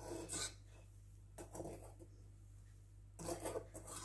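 A mixing utensil scraping and rubbing through thick egg batter in a mixing bowl as dry ingredients are folded in from the bottom up: three soft scrapes about a second and a half apart.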